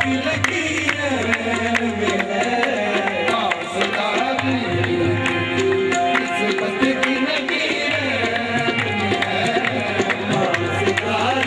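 Live qawwali music: harmonium melody over a steady tabla rhythm.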